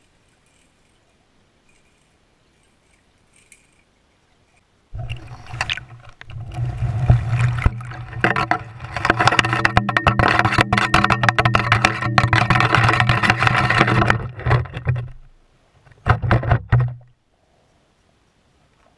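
A steady low motor hum mixed with fast clicking, heard through an underwater camera housing. It starts suddenly about five seconds in, runs for about ten seconds and cuts off, then comes back briefly for about a second near the end.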